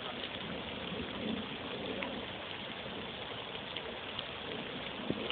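Steady hiss of light rain falling, with a few faint ticks of drops.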